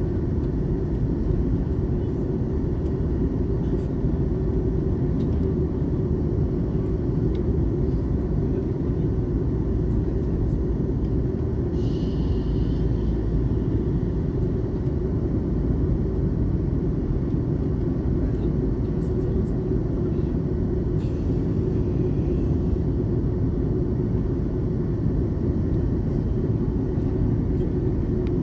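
Steady low rumble inside the cabin of an Airbus A330 with its engines running, even in level throughout. A brief faint high tone sounds about twelve seconds in.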